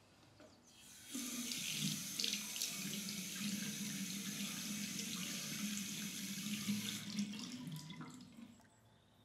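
Bathroom tap running into a sink, water splashing steadily in the basin. It comes on about a second in and is shut off a little before the end.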